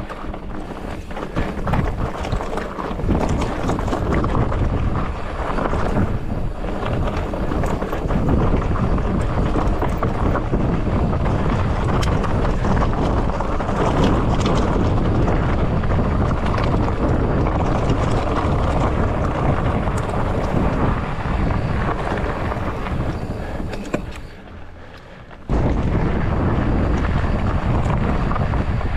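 Wind rushing over a helmet or body-mounted action camera's microphone while riding a mountain bike along a dirt trail, with scattered knocks and rattles from the bike. The rush drops away for about a second and a half near the end, then comes back suddenly.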